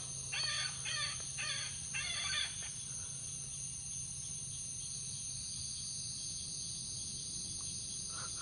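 Electronic predator call playing an animal distress sound: five short pitched calls in quick succession, stopping about two and a half seconds in, leaving only steady background hiss.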